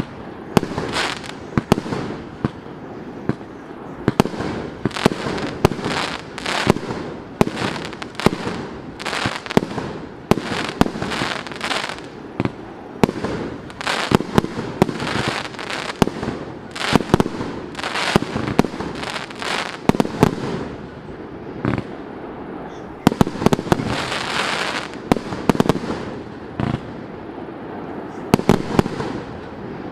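A 100-shot firework cake with 1.2-inch tubes firing shot after shot: repeated sharp bangs of launches and bursts, several a second, with a short pause about two-thirds of the way through.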